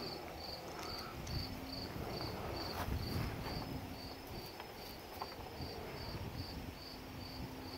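Crickets chirping steadily, about two chirps a second, with a few faint knocks and handling noises underneath.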